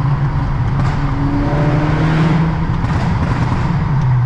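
Volkswagen Golf R's turbocharged four-cylinder engine with an aftermarket turbo-back exhaust, driving with the windows down and the engine note rising a little in the middle before easing off near the end. The sound carries the echo of a road tunnel.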